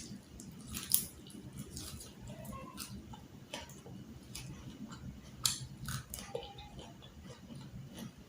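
Close-miked eating: chewing and crunching fried fish and vegetables, with scattered small clicks and two sharper, louder clicks about a second in and about five and a half seconds in.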